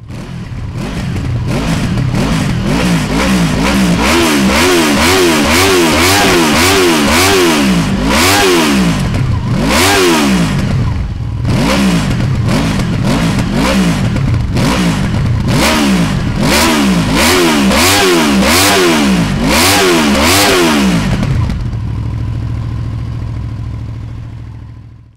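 Honda VFR800F's V4 engine running through a GPR aftermarket silencer, revved over and over in quick throttle blips, the pitch rising and falling with each one. Near the end it settles to a steady idle.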